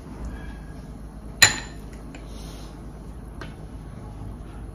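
Tableware clinking at a meal: one sharp clink with a brief ring about a second and a half in, then a couple of faint clicks.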